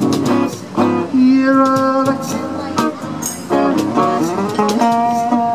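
Acoustic guitar and cajon playing together: ringing guitar chords and single notes over a steady cajon beat.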